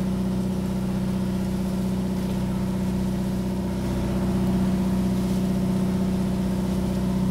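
Outrigger boat's (bangka's) engine running steadily underway, a constant drone that gets a little louder about halfway through.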